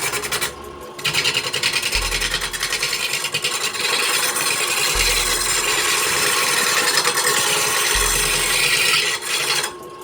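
Turning tool cutting into wood spinning on a lathe: a steady rasping scrape that stops briefly about half a second in and again near the end as the tool lifts off. Under it, a deep bass note from background music comes in about every three seconds.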